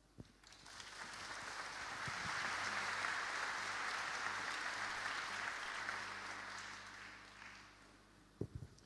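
Congregation applauding, a dense clapping that builds over the first two seconds, holds, then dies away after about six seconds. A few short knocks come near the end.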